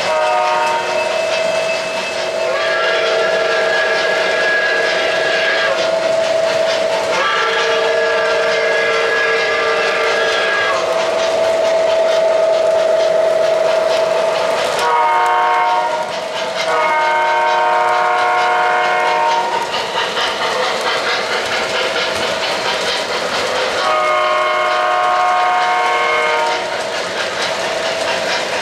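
O-gauge model trains running on three-rail track, their electronic sound systems blowing a series of long multi-note horn and whistle chords, some held for several seconds, over the clatter of wheels on the rails.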